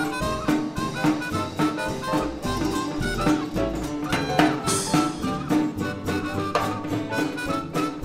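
A 1920s-style jazz dance band playing an instrumental passage, a trumpet leading over a drum kit that keeps a steady beat.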